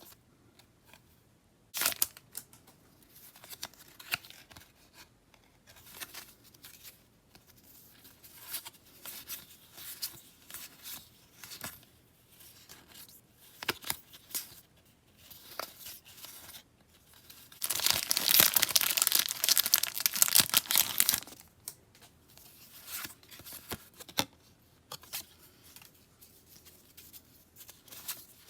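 Product packaging being handled by hand with scattered crinkles and clicks, then torn open in one loud, continuous tear lasting about three and a half seconds, about two-thirds of the way through.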